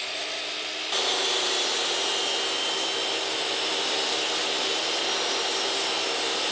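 A miter saw running, then from about a second in a table saw ripping a maple board: a steady whine of the blade under load.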